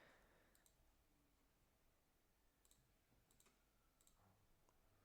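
Near silence, with about four faint, short clicks at a computer, spread a second or so apart.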